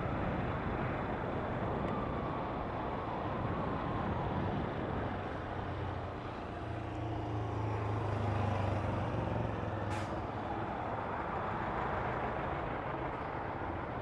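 Busy street traffic: motor vehicles running and passing, with a low engine hum strongest in the middle and a short hiss about ten seconds in.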